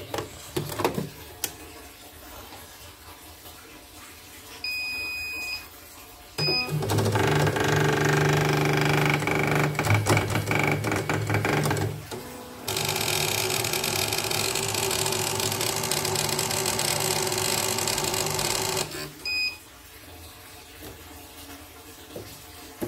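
CNY portable embroidery machine powering up: electronic beeps, then its motors run loudly for about twelve seconds in two stretches with a brief break, followed by another short beep.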